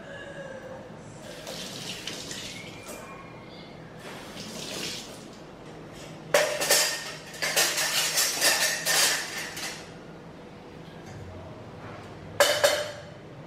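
Steel kitchen utensils clinking and clattering as they are dropped into a utensil holder on a dish rack: a run of clatters about six seconds in that lasts some three seconds, and one more short clatter near the end, with softer handling noises before.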